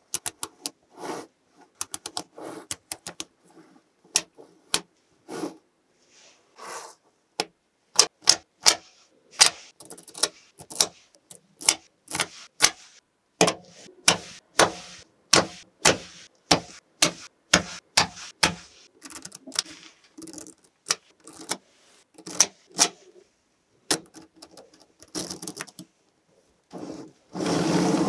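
Small magnetic steel balls clicking and snapping together as rows of them are set against a sheet of magnet balls, in sharp, irregular clicks. Near the end there is a denser, louder stretch of rattling.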